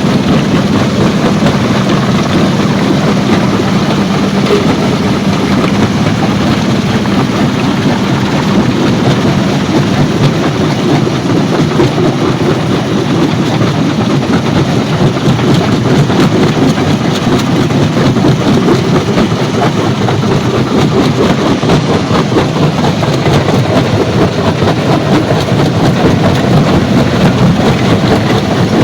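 Stone crushing plant running: a continuous heavy mechanical din with rapid rattling and clatter of crushed stone, and a steady hum that fades a few seconds in.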